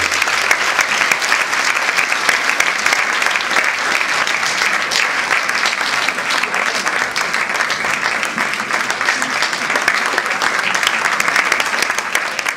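Theatre audience applauding, a dense steady clatter of many hands clapping at once.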